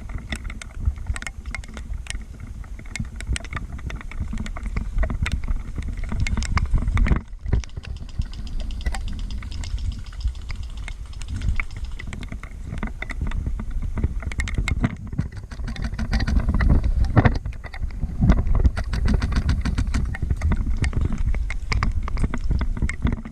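Movement noise on a body-worn camera microphone: a low rumble of wind and handling with many irregular sharp ticks and clicks. It drops out briefly about 7 seconds in.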